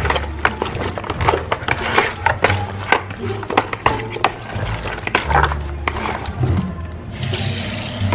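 Background music with a low bass line. About seven seconds in, a kitchen tap starts running water into a plastic bowl of raw oxtail, rinsing the meat.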